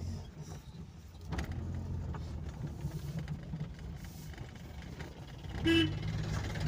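Car engine running at low speed, heard from inside the cabin as the car drives slowly, with a knock about a second in and a short, loud beep near the end.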